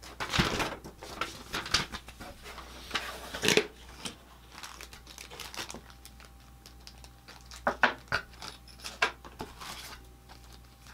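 Paper and plastic packaging rustling and crinkling as an instruction sheet is handled and small bagged parts are lifted out of a cardboard box, in irregular bursts with short quiet gaps.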